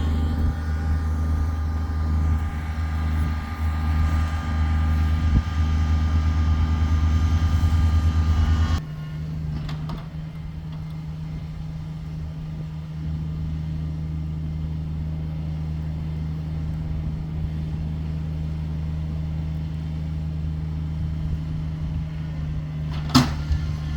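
Kubota tractor engine running steadily. About nine seconds in it drops abruptly to a quieter, lower, even hum. A single sharp click comes near the end.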